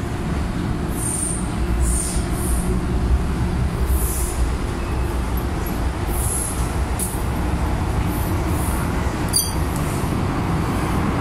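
Interior of a moving MTR M-Train (Metro-Cammell electric multiple unit): a steady low rumble of wheels and running gear on the track, with a few brief faint high-pitched squeaks scattered through it.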